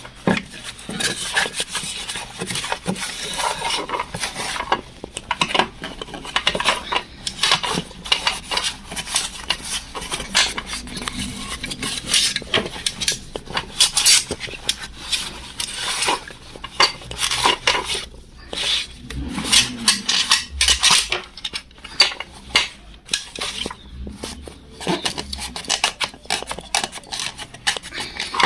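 A rag rubbing and wiping out the inside of an Emel industrial sewing machine during an oil change, with irregular metallic clinks and scrapes.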